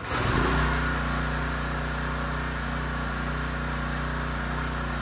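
A gas pressure washer's small engine running steadily, with the hiss of its water spray over it.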